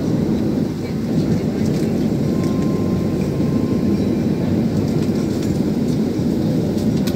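Steady low rumble inside an airliner cabin parked at the gate: the aircraft's air-conditioning and onboard systems running. A faint thin whine sits on top of it for a second or so in the middle.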